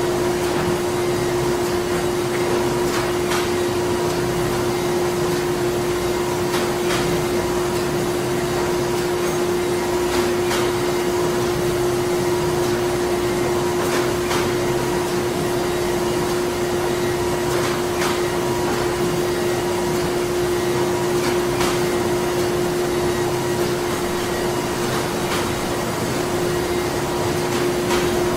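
Printing-factory machinery running steadily: an even mechanical hum with a constant drone, and faint clicks every second or two.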